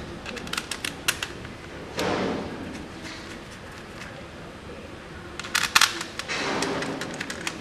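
Clicks and clacks of a metal fender-eliminator bracket and a plastic tail piece being handled and fitted together, with a short scraping rustle about two seconds in and a burst of sharp clicks near six seconds.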